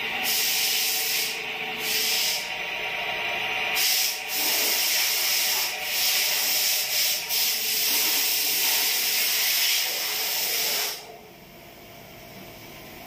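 Engine crankshaft spinning at speed on a belt-driven dynamic balancing machine, a loud hissing whir with a few brief dips. It cuts out about eleven seconds in as the machine stops, leaving a faint hum.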